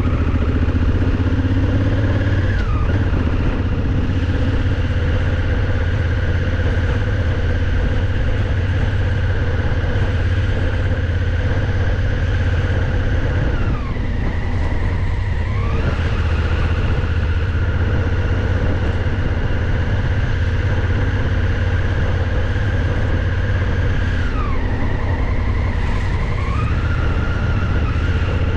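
Motorcycle engine and exhaust running while riding. The engine note drops and climbs back twice, near the middle and near the end, as the bike eases off and speeds up again.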